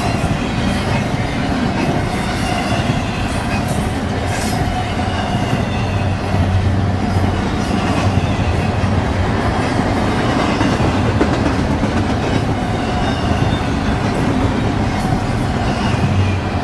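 BNSF freight train rolling past, a steady loud rumble with wheels clicking over the rail joints.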